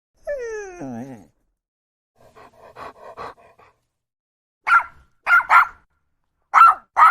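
A dog barking: first a short whine that falls in pitch, then a few quiet yips, then five loud, sharp barks, some in quick pairs.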